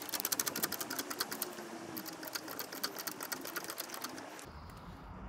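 Socket ratchet clicking rapidly in quick runs, with a brief pause about two seconds in; the clicking stops a little after four seconds.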